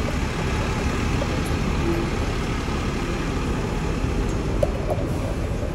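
Hong Kong double-decker electric tram in motion, heard from its upper deck: a steady low rumble of the ride, mixed with street traffic.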